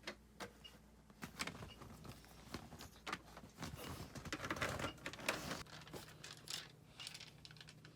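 Faint, scattered clicks, taps and rustles of plastic toys being handled.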